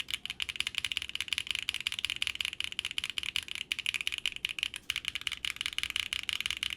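Quantum60 custom 60% mechanical keyboard being typed on fast: a dense, continuous run of keystroke clacks with a couple of brief pauses, around four seconds and five seconds in.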